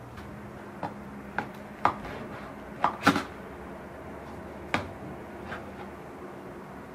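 A kitchen knife clinking and knocking against a metal baking tray and glass serving plate as a baked cake is cut and lifted out: about seven sharp clinks, the loudest a pair about three seconds in, over a faint steady hum.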